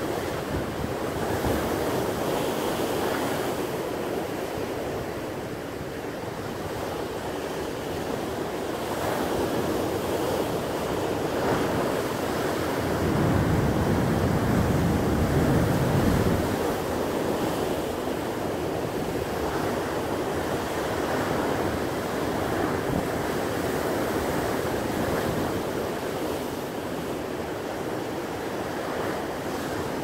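Rough sea surf breaking over rocks and washing back in a continuous rush. It swells loudest about halfway through as a larger wave crashes.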